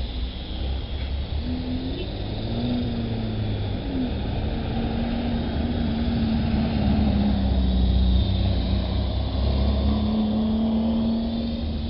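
Big QS 8005 coaxial radio-controlled helicopter in flight, its electric motors and rotors making a steady hum whose pitch wavers up and down with the throttle, over a heavy low rumble.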